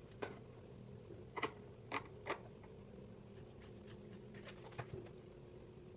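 Scissors snipping through fabric: a few sharp snips between about a second and a half and two and a half seconds in, then fainter ones, over a faint steady hum.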